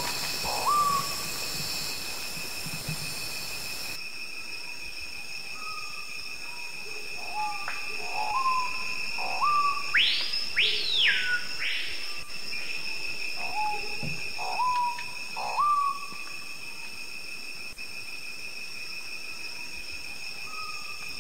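Lowland Amazon rainforest ambience: a steady high insect drone at several pitches, with a bird's short rising whistled notes repeated in groups. About ten seconds in, a louder whistle sweeps high and falls back.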